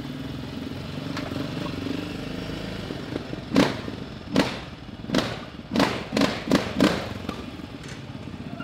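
Sport ATV engine running low while the quad rolls slowly, then, from about three and a half seconds in, a quick run of about seven short, sharp throttle blips.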